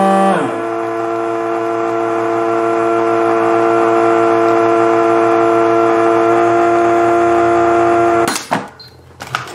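Countertop vacuum sealer's pump running on its dry setting, drawing the air out of a sealing bag. Shortly after the start its pitch drops sharply; it then runs steadily and cuts off suddenly with a click near the end.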